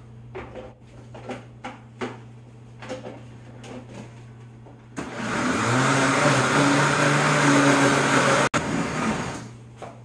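Countertop blender running for about four seconds from halfway through, mixing a thick peanut cake batter, with a momentary break near the end. Before it, a few light clicks and knocks as the lid is fitted on the jar.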